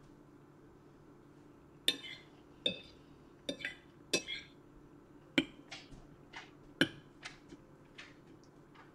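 Metal fork clinking against a plate as it picks up pieces of rotini: a string of sharp separate clinks, starting about two seconds in and coming roughly every half second to a second.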